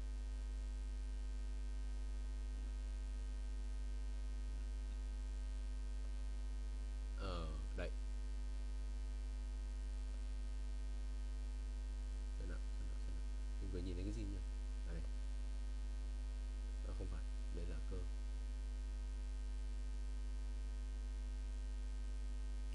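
Steady electrical mains hum on the recording microphone: a constant low drone with fainter steady tones above it. A few faint murmured words break in briefly partway through.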